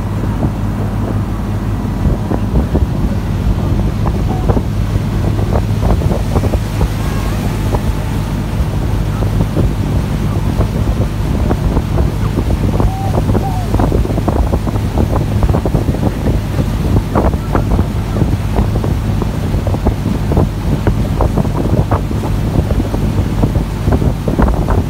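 Small abra ferry boat's engine running steadily under way, a constant low hum, with wind buffeting the microphone and frequent short crackles of water against the hull.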